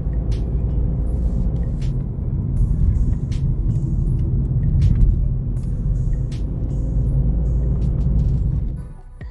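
Steady low road and engine rumble of a VW Polo 1.0 TSI three-cylinder turbo petrol being driven, with a hip hop beat playing over it. About 9 s in the driving noise cuts off, leaving only the music.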